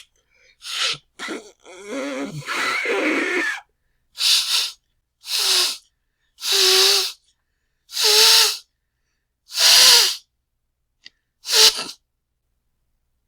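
A person blowing their nose loudly: a short blow, then a long blow of about two seconds, then six short blows with a honking tone, about one every second and a half.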